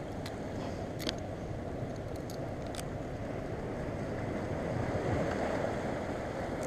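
Steady rush of wind and surf against the rocks, with a few faint clicks from hands working fishing line and a knife.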